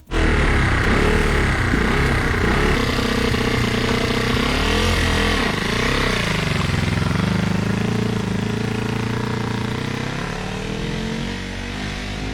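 Restored Honda CB125 motorcycle engine running steadily, with a short rise and fall in revs about five seconds in.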